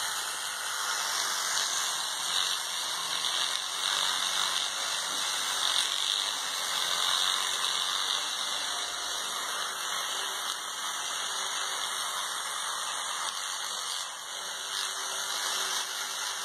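Electric toothbrush with a round oscillating head running steadily against a cat's teeth and cheek, a continuous high-pitched whirring buzz.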